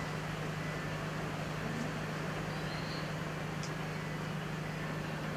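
Steady low hum over an even background hiss: room tone with no speech.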